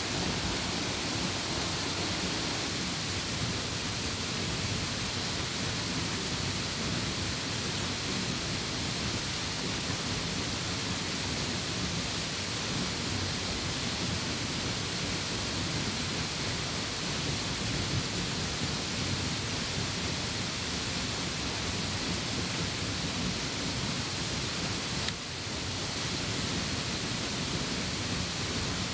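Waterfall's falling water rushing steadily, with a brief dip in level near the end.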